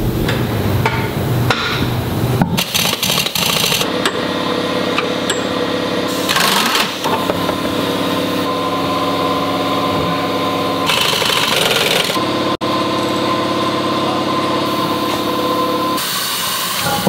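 Shop power tools at work: a fast hammering rattle and steady whining tool noise, changing abruptly every few seconds as short clips are cut together.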